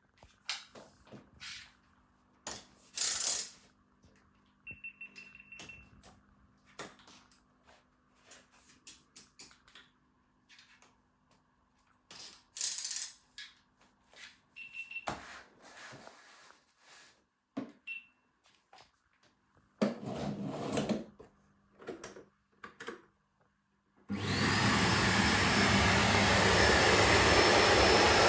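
Scattered small clicks and knocks of handling, then about twenty-four seconds in a Bosch BGS21X320 bagless vacuum cleaner switches on. Its motor whine rises as it spins up, and it then runs steadily and loudly.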